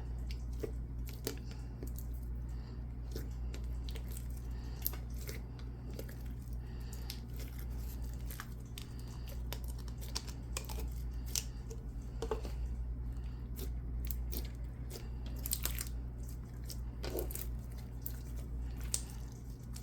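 Clear slime with creamer being folded and squished by hand, giving off irregular small wet clicks and bubble pops.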